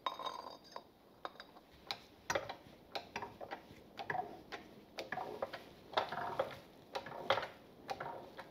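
Workshop press pressing a new roller bearing down onto a motorcycle steering stem through a scaffold-tube drift: a steady run of light metallic clicks, about two a second.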